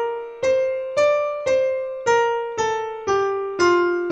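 Sampled piano notes from a browser-based virtual piano, played one at a time about every half second as a D natural minor scale (B flat as its only flat), climbing to the top note about a second and a half in and then stepping back down.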